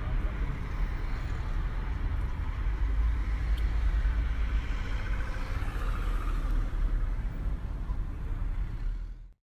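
Inside a VW T-Cross driving slowly through town traffic: steady low rumble of road and engine noise with the hiss of tyres. It cuts off abruptly near the end.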